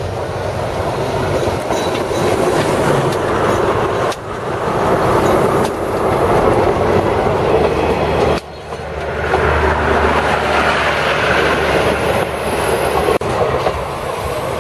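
State Railway of Thailand diesel-hauled passenger train passing close by, its steel wheels rolling over the rails with a loud, steady rumble. The sound drops abruptly and picks up again three times.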